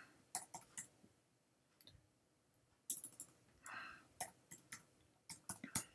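Computer keyboard keys clicking in short irregular runs as a web address is typed, with a brief soft hiss near the middle.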